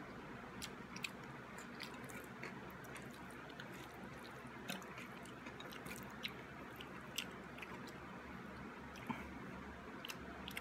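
A person chewing food with chopsticks in hand, faint, with irregular short clicks scattered throughout over a steady low hum.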